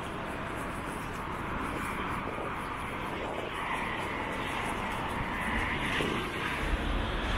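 Steady outdoor engine roar that slowly grows louder, with a deeper rumble coming in near the end.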